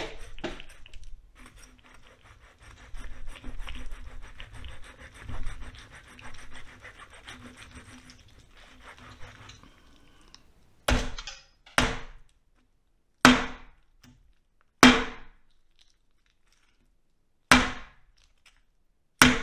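Large kitchen knife sawing back and forth at the bone of a roasted lamb skull: a fast rasping scrape for several seconds. Then six hard chopping whacks of the blade into the skull, spaced a second or two apart.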